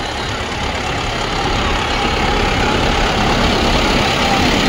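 Steady rumble of vehicles on the move: engine noise mixed with road noise, without clear changes.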